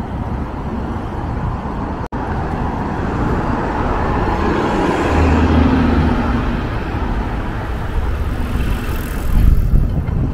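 Street traffic on a city avenue, with a car passing close by in the middle, its engine hum rising and fading. The sound cuts out for an instant about two seconds in, and wind rumbles on the microphone near the end.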